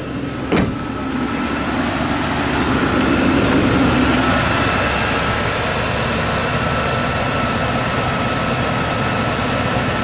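1967 Ford Thunderbird's 390 cubic-inch V8 idling steadily. A single thump about half a second in, as the hood is shut.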